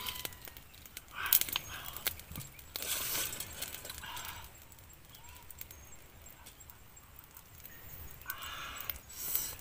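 Eggshell crackling and rustling as the shells are peeled off boiled eggs, with small clicks. Two brief louder vocal-like sounds come about a second in and again near the end.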